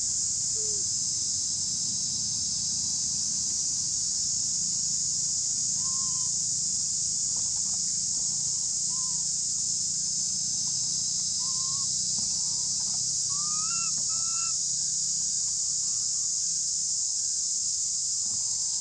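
Steady high-pitched drone of an insect chorus, with short faint calls scattered through it and two louder rising calls about two-thirds of the way in.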